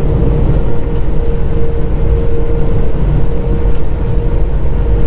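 Jet airliner cabin noise while taxiing: a steady loud low rumble from the engines, with a steady hum running through it.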